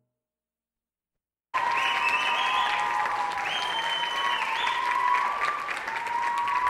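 Dead silence, then about a second and a half in, audience applause breaks in abruptly and keeps going, with high-pitched whoops and cheers over the clapping.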